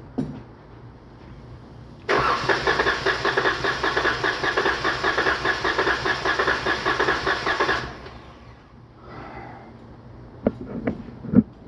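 Starter cranking the Dodge Charger's 3.6 V6 for about six seconds in a compression test, with a quick, even chugging, then cutting off. The cylinder under test reaches only about 90 psi: low compression, which the mechanic blames on the valves.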